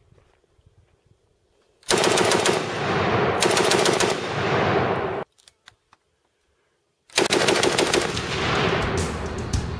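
Italian Breda Model 30 light machine gun firing two bursts of automatic fire, the first starting about two seconds in and lasting about three seconds, the second starting about seven seconds in.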